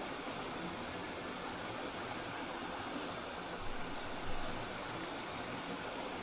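Spring water flowing steadily, a constant rushing hiss, with two slightly louder splashes about two thirds of the way through.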